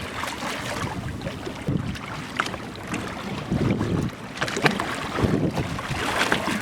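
Water sloshing and splashing against the side of a small fishing boat, with irregular short splashes, and wind buffeting the microphone.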